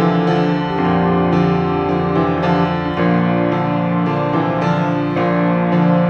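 Background piano music, with sustained notes and chords changing about twice a second.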